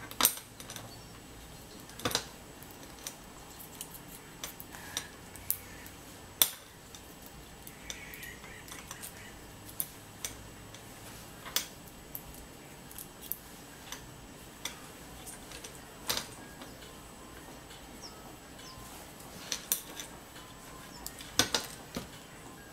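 Irregular sharp metallic clicks and taps as small metal parts, alligator clips and wires are handled on a tiled workbench, a couple of dozen over the stretch, with a louder cluster near the end.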